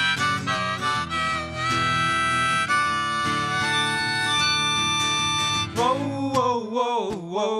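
Harmonica solo with several notes held together, over a strummed acoustic guitar and electric bass guitar in a live country-folk band. Near the end the guitar and bass drop out, leaving a lone wavering note.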